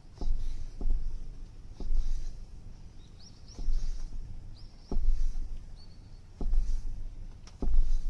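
Kitchen knife chopping through squid bait onto a wooden cutting board: about seven dull thuds, unevenly spaced about a second apart, as the squid is scored into strips.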